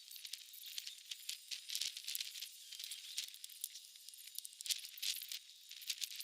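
Dry leaves and twigs rustling and scratching in irregular bursts, as storm-felled branches are handled.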